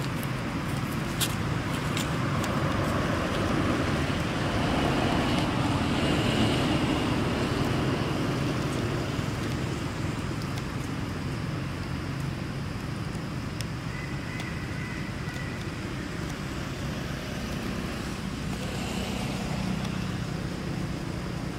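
Steady outdoor background noise: a low rumble and hiss with no single clear source, a sharp click about a second in, and a few faint high chirps.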